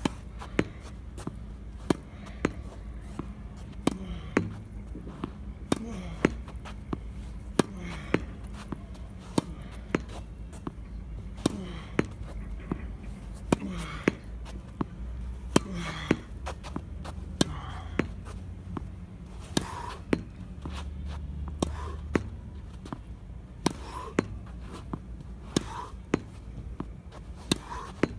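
Tennis ball rallied against a practice wall: racket strings striking the ball, the ball hitting the wall and bouncing on the court. A continuous series of sharp knocks, about one to two a second.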